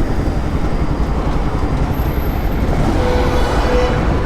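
Motorcycle riding along with its engine running under a steady low road and wind rumble.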